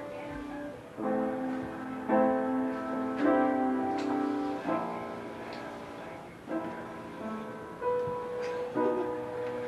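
Piano music: a slow run of chords and held notes, a new chord struck about every second or so.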